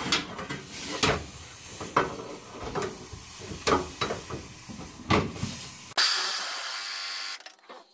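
Light metal clinks and knocks, about one a second, as the socket of a pneumatic impact wrench is set on a gas tank strap bolt. About six seconds in comes a short burst of compressed-air hiss with a high whine from the air impact wrench, lasting about a second and a half.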